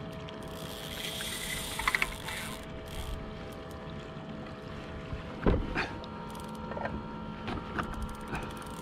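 Fishing reel being worked with a fish on the bent rod: a loud knock about halfway through, then a run of irregular clicks and a steady whirr from the reel.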